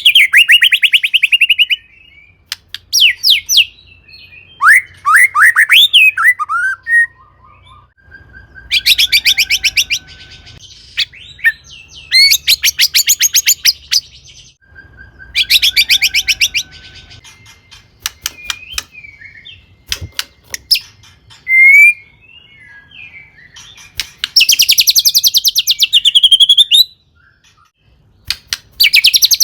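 White-rumped shama (murai batu) singing a varied song: short whistled and swooping phrases broken by four loud, rapid rattling trills of two to three seconds each.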